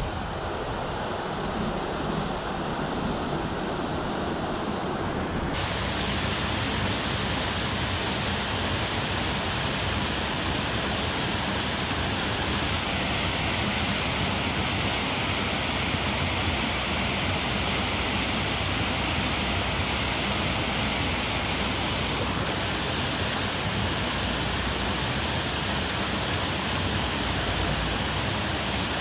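Steady rush of flowing river water over rocks. The hiss shifts abruptly in tone and brightness a few times.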